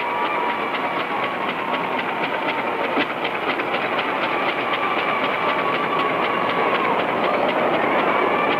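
A machine running with a rapid, regular clicking over a steady whine, growing gradually louder.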